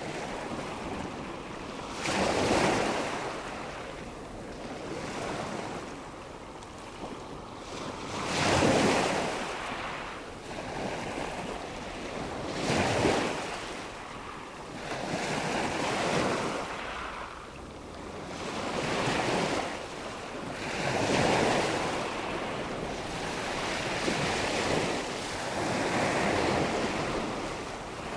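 Ocean waves breaking and washing in, a steady rush of surf that swells with each wave every few seconds.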